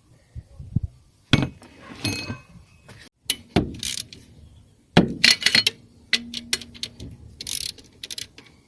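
Metal hand tools and sockets clinking and knocking against each other and against engine parts, in a string of sharp separate knocks with quick runs of clicks after about five seconds.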